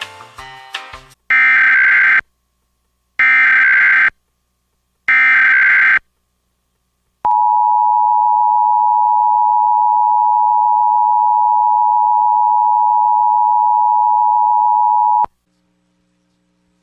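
Emergency Alert System tones. First come three short bursts of SAME header data screech about two seconds apart, encoding a National Weather Service flood warning. After a pause, the two-tone attention signal (853 and 960 Hz together) sounds steadily for about eight seconds and cuts off abruptly.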